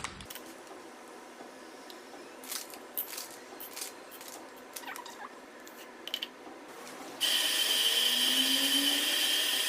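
Coffee beans clicking and rattling as they are handled and poured, then about seven seconds in an Evenly DM47 electric coffee grinder switches on and runs steadily with a high whine as it grinds the beans.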